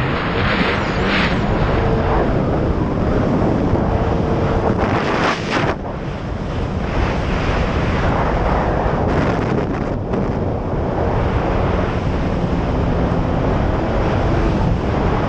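Jet ski under way: wind buffeting the microphone and water rushing past the hull make a loud, steady rush, with the engine's hum faintly underneath. About five seconds in there is a brief sharper hiss.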